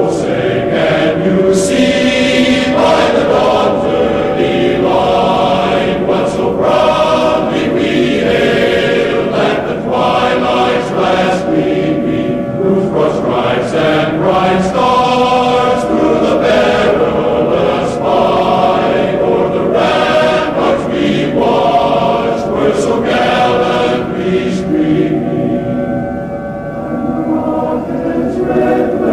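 A choir singing a national anthem.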